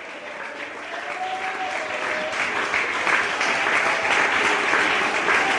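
Congregation applauding, the clapping swelling steadily louder, with a voice or two calling out in the first couple of seconds.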